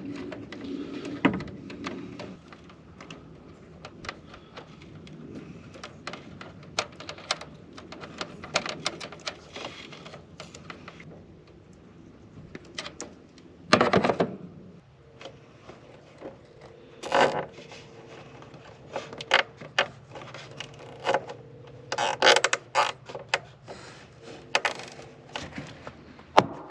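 Handling noise from work on a grain-bin fan control box: a long run of scattered clicks, taps and rubbing as wires are fitted, with a louder knock about halfway and a clack of the box door's metal latch near the end. A faint steady hum sits underneath from about halfway on.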